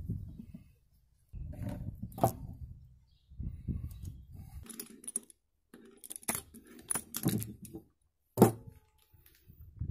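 Metal clinking and knocking as a homemade steel bearing puller, with the pulled bearing on its jaws, is handled and laid down on a wooden board, with one sharp knock near the end.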